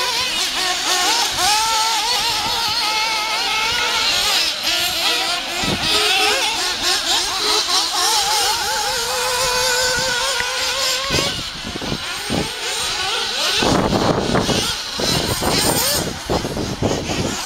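Several nitro-powered 1/8-scale off-road RC buggies racing, their small glow engines whining high and rising and falling in pitch as they accelerate and back off. About three quarters of the way through a louder rough rushing noise covers them.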